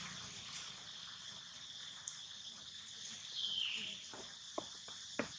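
Steady high-pitched chorus of insects chirring. About three and a half seconds in comes a short squeak that falls in pitch, and near the end a few light clicks.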